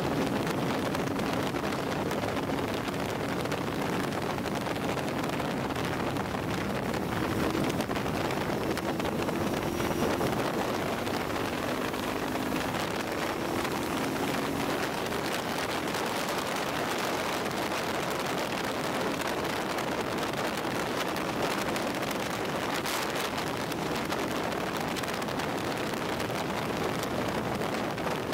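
Sport motorcycle riding at road speed, heard from the rider's seat: heavy wind rush on the microphone over a steady engine hum, whose note rises a little for a few seconds partway through.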